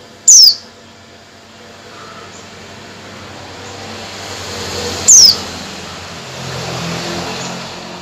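Female white-eye (pleci) calling: two short, sharp, high notes that fall steeply in pitch, about five seconds apart. A low background noise swells and fades between them.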